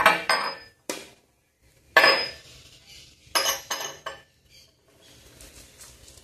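Clinks and knocks of a small bowl against a stainless steel mixing bowl: about seven sharp strikes in the first four seconds, the loudest about two seconds in. Near the end comes a faint rustle as grated cheese is poured into the dough.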